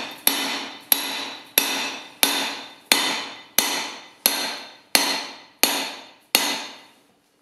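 Hand hammer striking a punch held in red-hot steel on a cast swage block, driving it through to open a hammer eye. About ten blows come at a steady pace of roughly one and a half a second, each a sharp metallic strike with a ring that dies away, and stop about a second before the end.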